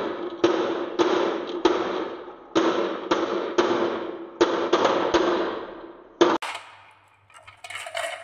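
Glass marbles dropping off the end of a wooden track into a plastic toy dump-truck bed full of marbles: sharp clacks in small irregular clusters, each ringing briefly. After about six seconds they stop and only quieter rattling follows.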